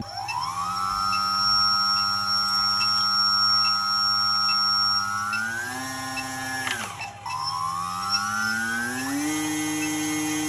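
Electric motor of an RC model airplane spinning its newly fitted propeller in a thrust test. The whine rises as it spools up and holds steady, steps higher about five and a half seconds in, drops sharply about a second later, then climbs again and holds.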